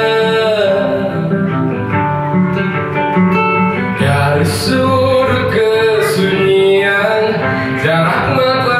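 A man singing while playing an acoustic guitar, a live song with long held sung notes.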